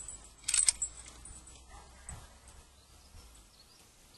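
Brief metallic jingle of a draft horse's harness and trace chains about half a second in, with a soft thump near two seconds.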